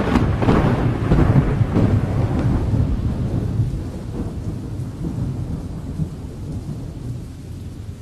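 A thunderclap cracks at the start and rolls into a long low rumble over steady rain, gradually fading away.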